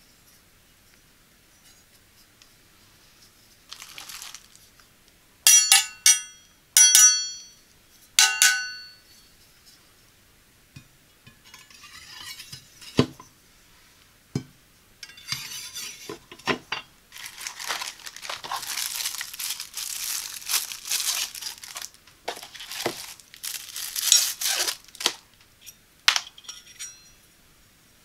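Stainless steel knife blades clink three times, each strike ringing out briefly with a clear metallic tone. Then comes a long stretch of plastic wrapping crinkling and tearing as knives are unwrapped from their sleeves, with a few light clicks and a last small metallic clink near the end.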